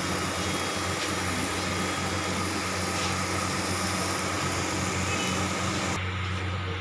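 Keema (minced-meat) tikki patties frying in oil in a pan, a steady sizzle over a low steady hum. The sizzle cuts off abruptly near the end.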